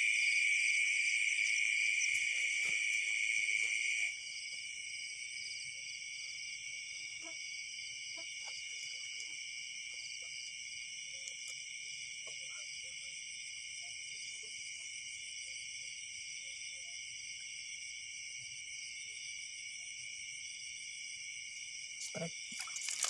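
Steady high-pitched chorus of crickets and other night insects, louder for the first four seconds and then quieter.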